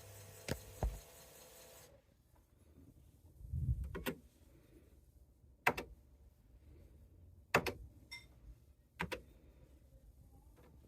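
A TRS-80 Model 4 computer in use: a steady whir that cuts off abruptly about two seconds in, then single sharp clicks every second and a half or two, with a low thump near four seconds.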